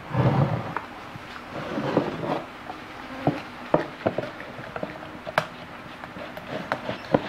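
A glass measuring jug set down on a stone countertop with a dull thump, followed by scattered light clicks and knocks of things being handled.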